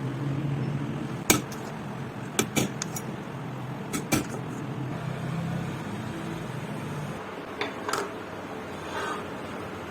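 Motorcycle engine running steadily with a low hum and several irregular sharp knocks; the engine sound drops away about seven seconds in, leaving a few more knocks.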